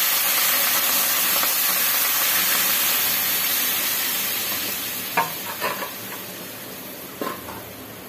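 Fried vegetables and oil in an aluminium pot sizzling as water is poured in. The hiss fades steadily as the water cools the pan, with a few short clinks near the end.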